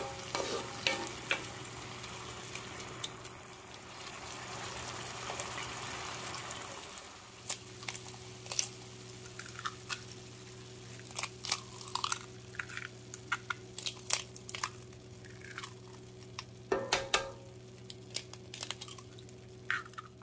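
Food sizzling and frying in a pan while a utensil stirs it, clicking against the pan. About seven seconds in, the sizzle dies down and the utensil goes on with scattered clicks and short scrapes. A faint steady hum lies under it all.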